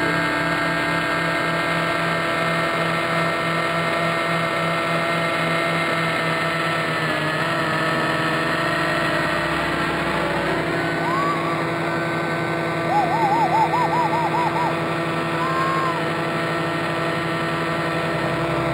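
Radio-controlled helicopter running in flight: a steady whine of motor and rotors made of several held tones. About 13 seconds in comes a short, louder run of quick warbling chirps, with single chirps a couple of seconds before and after.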